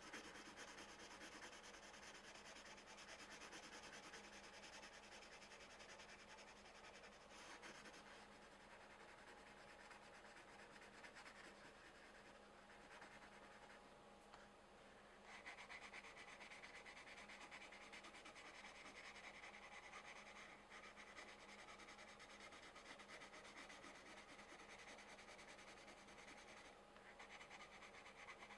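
Colored pencils shading on coloring-book paper: a faint, continuous scratchy rubbing of pencil lead across the page, easing off briefly about halfway before picking up again.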